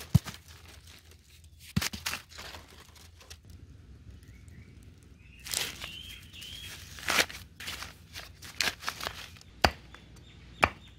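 Dry corn husks crackling and tearing as they are stripped off an ear of corn by hand, in short rustling bursts. Near the end come a couple of sharp knocks of a machete chopping a stick on a wooden log.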